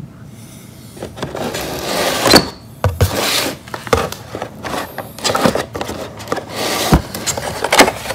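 Cardboard phone box being unpacked by hand: the plastic insert tray and phone rubbing and scraping against the box, with several sharp knocks, starting about a second in.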